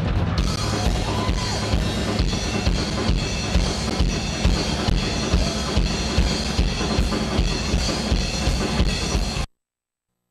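Drum kit in a live drum solo: bass drum and snare struck in a steady, busy pattern under cymbals. It cuts off abruptly about nine and a half seconds in.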